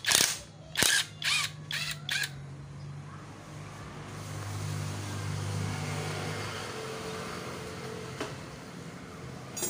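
A cordless power wrench with a socket, run in four or five short trigger bursts on cylinder-head bolts. A steady low motor-vehicle hum follows, swelling and then fading.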